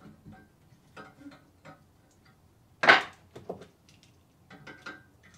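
A metal wrench clicking and clinking against a threaded metal fitting as the joint on a carpet-cleaning wand's valve is tightened down to its seat, a few light ticks with one sharper clank about three seconds in.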